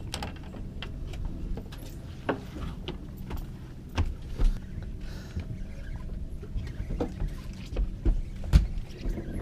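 Steady low hum of the fishing boat's engine, with several sharp knocks and thumps on the deck, the loudest near the end, as a fish is netted and brought aboard.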